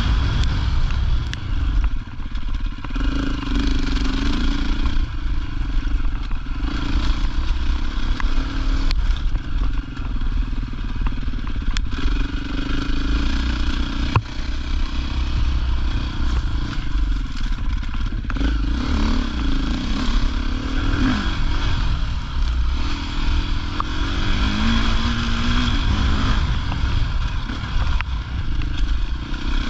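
Rally motorcycle's engine heard from on board while riding a dirt track, the revs rising and falling repeatedly as the rider opens and closes the throttle, with a few sharp knocks from the bike over the rough ground.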